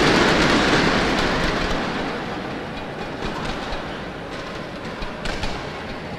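Arena crowd noise dying away after a point, then a badminton rally with a few sharp pops of rackets striking the shuttlecock in the second half.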